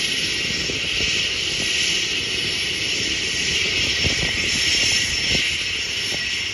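Engine of a single-engine light propeller plane running steadily as the plane rolls along the runway, heard at a distance, with irregular low wind buffeting on the microphone.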